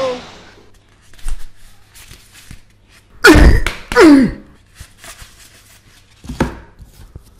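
A thump about a second in, then two loud sounds sliding down in pitch, a little under a second apart, at about three and four seconds in. Light knocks and clicks from handling a stiff green mask, and one more short loud knock near the end.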